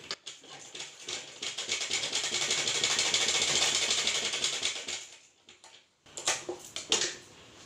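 Black sewing machine stitching fast, its needle going in a rapid, even ticking that swells and then stops. Near the end, two sharp scissor snips come less than a second apart as the threads are cut.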